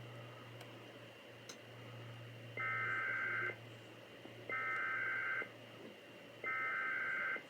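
Emergency Alert System SAME header for a weekly test: three identical bursts of chirping two-tone digital data, each about a second long, with about a second of gap between them.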